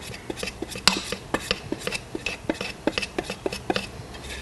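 A utensil scraping and tapping against the inside of a tin of polyester tint paste, in quick irregular clicks and scrapes, several a second, to get the last of the nearly empty paste out.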